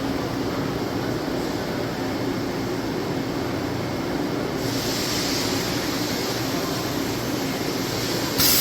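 Swiss-type CNC lathe and its magazine bar feed running with a steady mechanical hum. About halfway through, a hiss of air comes in. Near the end there is a short, loud, sudden burst as the bar feed's remnant drop-off activates.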